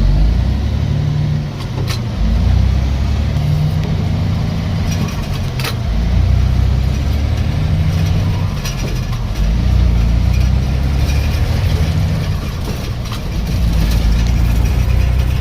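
Semi truck's diesel engine running under way, its pitch climbing and dropping back several times as it goes through the gears, with cab rattles and a couple of sharp knocks.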